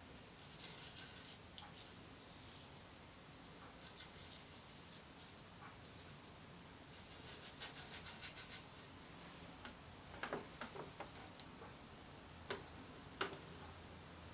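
Paintbrush scrubbing thin oil paint onto a smooth canvas, heard as a few faint runs of short strokes, the fastest near the middle at about six strokes a second. A few light taps and clicks follow near the end.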